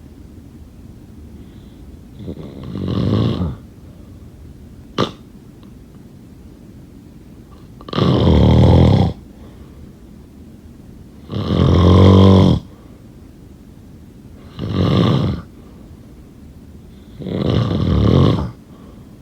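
A sleeping person snoring: five loud snores a few seconds apart, the two in the middle the loudest. A short sharp click about five seconds in.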